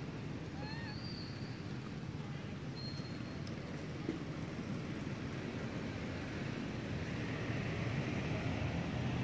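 Steady low background rumble, with a few faint short high squeaks about a second in.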